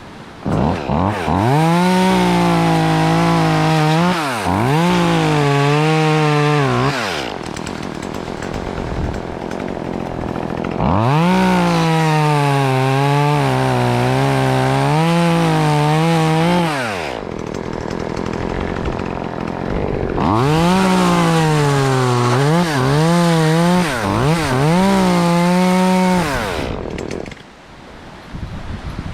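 Two-stroke chainsaw run at full throttle in three long bursts of about six seconds each. The engine pitch sags and recovers repeatedly within each burst as the saw cuts through queen palm fronds.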